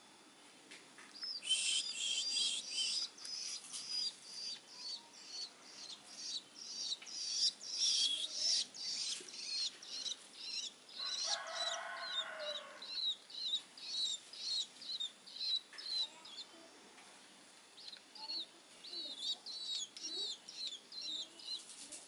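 Long-tailed shrike nestlings, hand-reared at about three weeks old, giving high begging chirps over and over, about two a second, with a pause of a few seconds after the middle. About halfway through, a lower, longer call sounds once.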